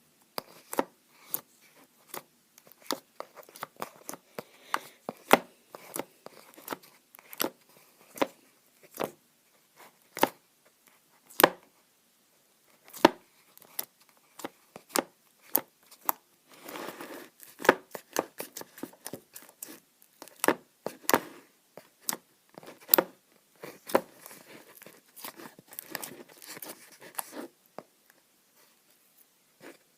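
Fluffy slime being squeezed and pulled by hand, giving irregular sticky pops and clicks, with two spells of denser crackling. It stops shortly before the end.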